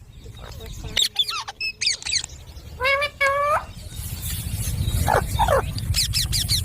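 Ringneck parakeet calling: quick sweeping squawks, with two short held whistle-like notes about three seconds in.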